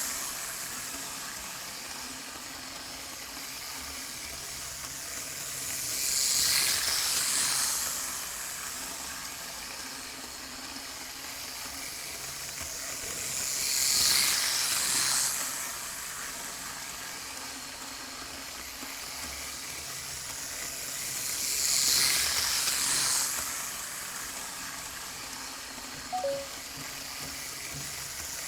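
T-gauge Hankyu 9000 model train running on its track, a steady thin hiss of the tiny motor and wheels that grows louder about every eight seconds, four times, as it laps.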